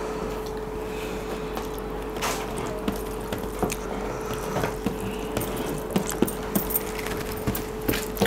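Rasam poured from a small plastic container onto rice on a steel plate, then fingers mixing the wet rice, with many small clicks and squelches against the plate. A steady hum runs underneath.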